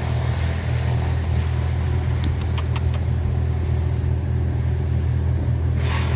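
Steady low rumble of an engine on tree-cutting machinery running without a break, with a quick run of faint high ticks about two and a half seconds in.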